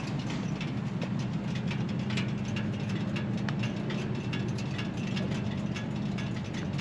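A vehicle engine running steadily at idle: an even low hum.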